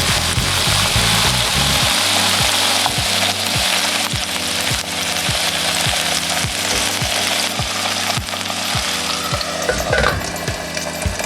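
Chicken breast sizzling steadily in an oiled frying pan, over a light beat of background music.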